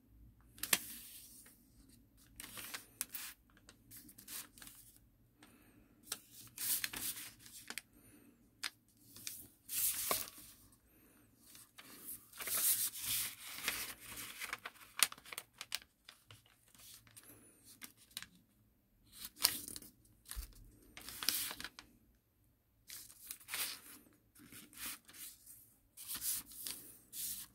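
A sheet of origami paper being folded and creased by hand. It crinkles and rustles, with sharp scrapes as each fold is pressed flat, in bursts of a second or two with short pauses between.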